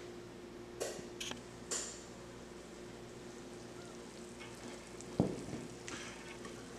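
Faint sizzling of glazed chicken thighs in a hot frying pan, with a few light clicks in the first two seconds and a sharper knock about five seconds in as the pan is handled, over a faint steady hum.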